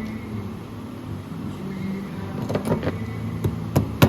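Hand tools knocking and clicking against leather on a crimping board while a boot vamp is being crimped: a few sharp taps in the second half over a steady low workshop hum.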